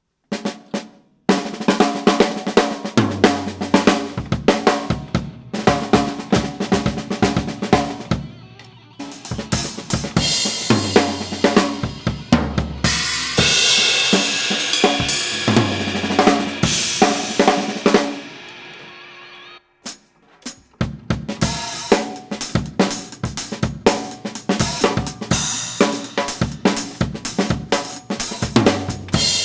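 Drum kit played in a sound check: fast kick, snare and hi-hat patterns with cymbal crashes. A long stretch of crashing cymbals rings out and stops about twenty seconds in, then the playing starts again.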